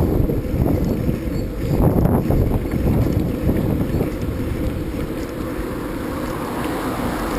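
Wind buffeting the microphone of a camera on a moving bicycle, a loud low rumble that gusts in the first half and settles steadier later on.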